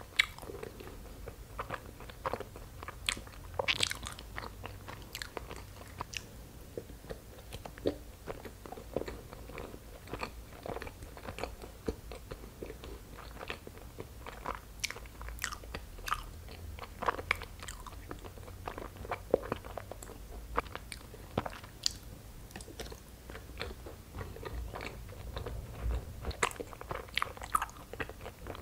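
Close-up chewing of soft, chewy injeolmi rice cakes filled with cream cheese, with many small irregular mouth clicks.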